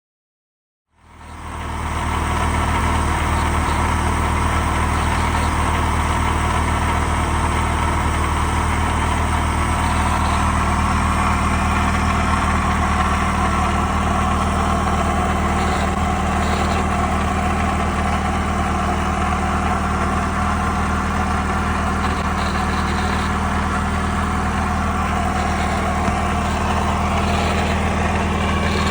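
1.7-litre Ford V4 engine in a 1969 Saab Sonett V-4 running steadily, fading in about a second in, with an intermittent rattle that comes and goes. The owner wonders whether the rattle is the clutch throw-out bearing or a freewheel mechanism stuck between on and off.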